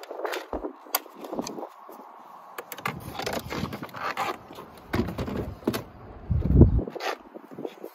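VW Golf Mk6 interior door panel being pried and pulled off the door with a plastic trim tool: scraping and a run of sharp clicks from the plastic panel and its clips, and a low thump near the end.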